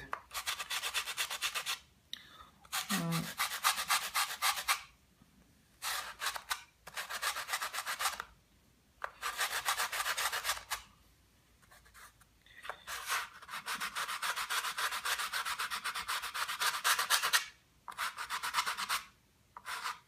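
Hand sanding of laser-cut wooden wing ribs with sandpaper: quick back-and-forth rubbing strokes that come in several bouts of one to five seconds, with short pauses between, as two ribs are blended level.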